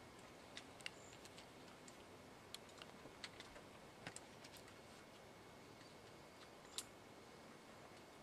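Near silence: faint outdoor background with a scattering of small, irregular clicks and ticks, two of them a little louder, about a second in and near the end.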